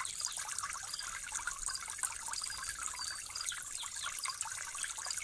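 Water trickling and bubbling steadily, a busy pattern of small quick gurgles.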